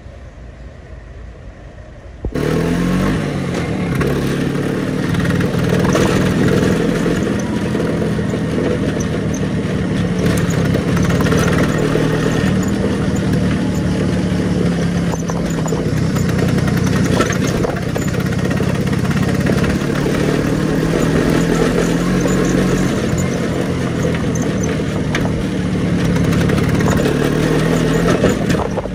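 Vespa scooter engine running on the road, its pitch rising and falling with the throttle, under a steady rush of wind and road noise. It cuts in suddenly about two seconds in, after a quieter stretch.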